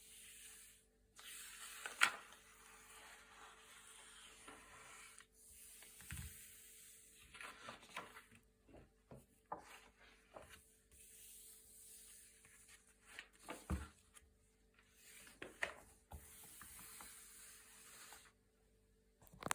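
Thick glossy paper pages being turned by hand: soft swishes of paper sliding, broken every few seconds by sharp crisp snaps as a page flips over.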